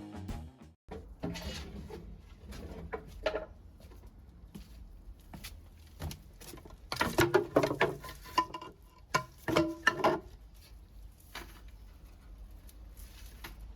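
Wood fire crackling with scattered sharp snaps and pops, plus a louder, denser run of pops and brief squeaky tones about seven to ten seconds in.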